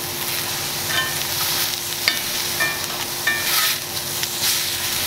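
Button mushrooms sizzling in a hot cast-iron skillet, with metal tongs clinking against the pan several times as they are turned.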